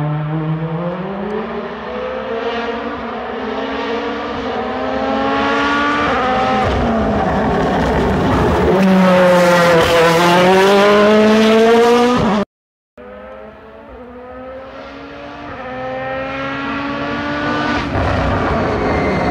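Toyota Yaris rally car's engine running hard, its pitch climbing and dipping as it accelerates and backs off for corners. It is loudest about nine to twelve seconds in. After a brief break the car is heard approaching again, growing louder toward the end.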